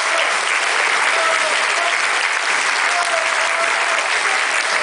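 Audience applauding steadily, with a few short calls heard over the clapping.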